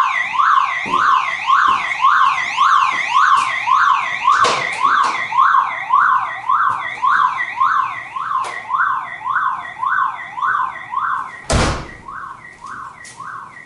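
Car alarm siren warbling, its pitch rising and falling about twice a second, sounding on its own with the car horn disconnected from the alarm. A loud thump comes about eleven and a half seconds in, and after it the siren is quieter.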